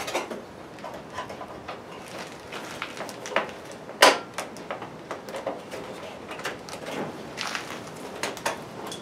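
LED tubes being fitted into the sockets of an old fluorescent shop-light fixture: light clicks and knocks of the tube ends sliding in and being turned, with a sharp click about four seconds in and a few more clicks near the end.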